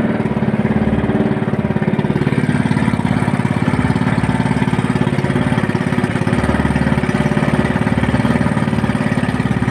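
Small boat's engine running steadily underway, a fast, even putter with no change in speed.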